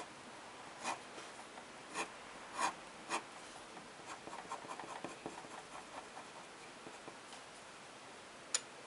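Fine-tip ink pen scratching across drawing paper: a few separate longer strokes, then a run of short quick strokes as hatching lines are drawn. A sharp tick near the end.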